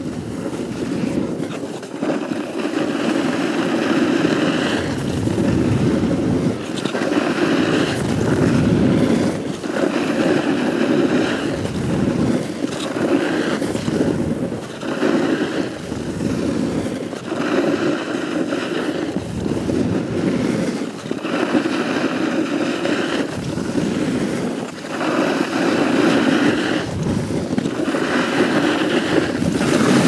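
Snowboard edge carving through groomed snow: a rough scraping hiss that swells on each turn and dips between them, about one turn every two seconds.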